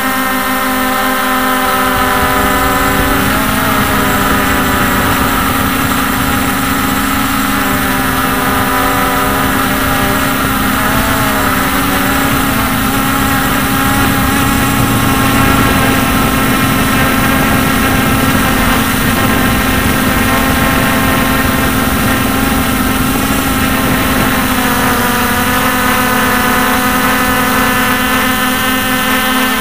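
Hubsan X4 H501S quadcopter's brushless motors and propellers whining steadily in flight. Their pitch wavers up and down a little several times as the throttle changes.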